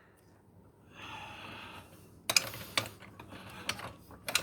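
A jack being let down slowly under a pickup truck: a soft hiss, then a scatter of clicks and light knocks as the truck settles onto the jack stand.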